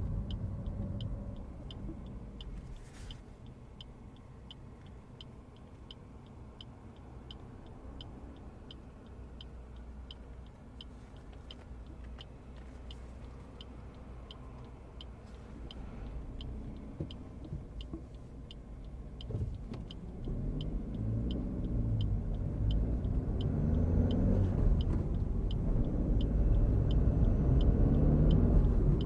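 Turn-signal indicator ticking evenly inside the cabin of a 2023 Suzuki Swift 1.2 petrol hybrid over quiet engine and road noise. From about two-thirds of the way in, the engine grows louder, its pitch rising and dropping several times as the car accelerates through the gears of its manual gearbox.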